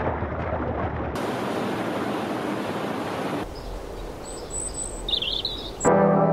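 A steady rushing noise that changes abruptly about a second in, then a quieter outdoor ambience with a few short bird chirps. Music starts near the end.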